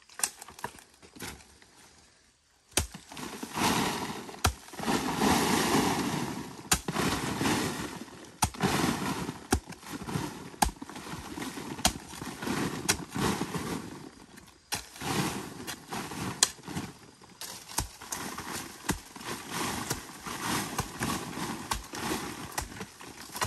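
Digging tool working wet earth by hand at a spring: irregular sharp strikes about every second or two, with scraping and the shifting of soil between them, loudest a few seconds in.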